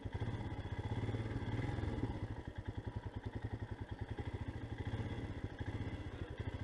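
Motorcycle engine running at low revs, a steady, even beat of exhaust pulses.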